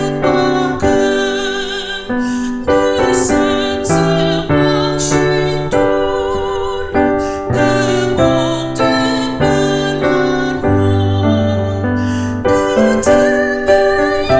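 Piano music: a slow run of held chords and melody notes, each new note struck with a sharp attack that then decays.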